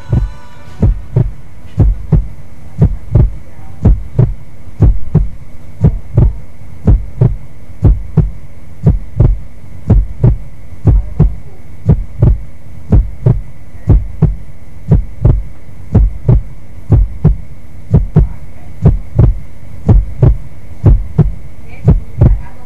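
Heartbeat sound effect: low double thumps about once a second, over a steady hum and a faint high steady tone.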